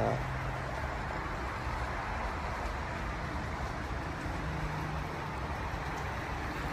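Steady outdoor background noise: a low rumble with hiss above it and a faint steady hum.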